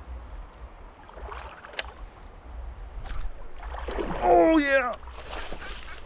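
A fishing reel whirring during a cast, a pitched whine of about a second that falls steadily in pitch as the spool slows; it is the loudest sound. A sharp click comes a little before it, over light water noise from wading.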